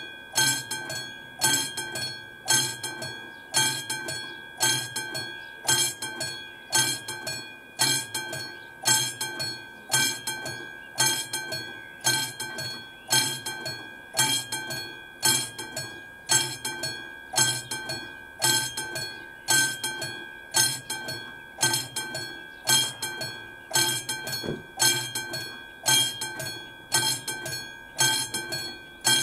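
Classic mechanical warning bell of an AŽD 71 level-crossing signal ringing with evenly spaced strikes, about one and a half a second, each ringing on with a clear tone. This is the crossing's warning that a train is coming.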